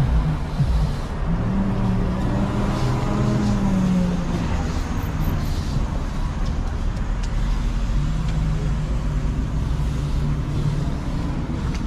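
Steady city street traffic rumble from passing road vehicles. One engine hum rises and then falls in pitch a couple of seconds in, and another holds steady for a few seconds later on.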